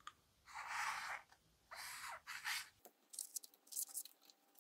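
Paper towel or cloth wiping the edges of a phone-sized touchscreen with rubbing alcohol: a few soft, faint swishing strokes, then several small faint ticks near the end.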